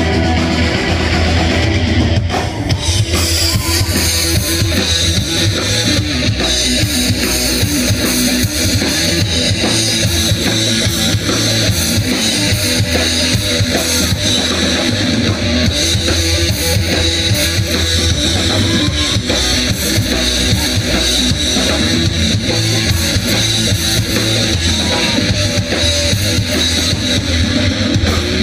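A live rock band playing, with a drum kit and electric guitars to the fore. The sound turns brighter and denser about three seconds in.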